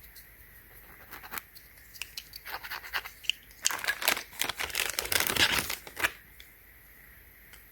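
Handling noise from plastic packaging and small plastic PDR glue tabs: a run of quick scratchy crinkles and clicks starting about a second in, getting busier and loudest around five seconds, and stopping about six seconds in.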